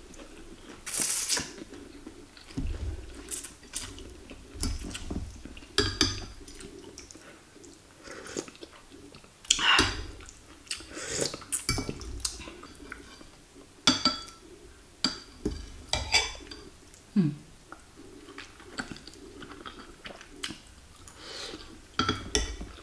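Metal fork and spoon clinking and scraping against a ceramic bowl of noodle soup in short, irregular clinks. Between the clinks come the sounds of slurping and chewing noodles.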